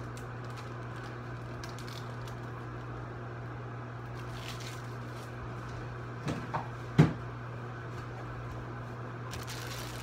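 Microwave oven running with a steady low hum while it cooks an egg. Three short pops come about six to seven seconds in, the last the loudest.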